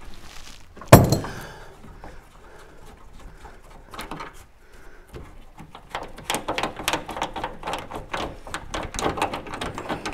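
A single loud knock about a second in, then from about six seconds a fast, uneven run of clicks, typical of a ratchet winding out the bolts that hold a van's sliding door.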